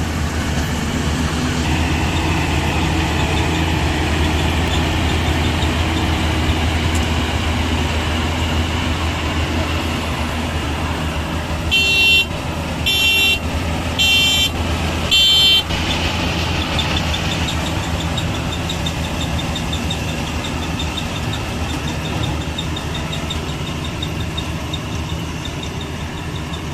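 Combine harvester engine running steadily, with four short horn blasts a little under halfway through.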